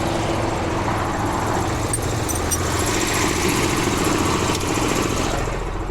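Air compressor running steadily as it builds up tank pressure, a low engine-like hum under the rush of passing highway traffic.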